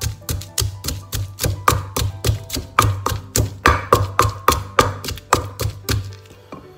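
Wooden pestle pounding green chilies in a clay mortar, a steady run of dull knocks about three a second that stops near the end, as the chili paste is being crushed. Background music plays underneath.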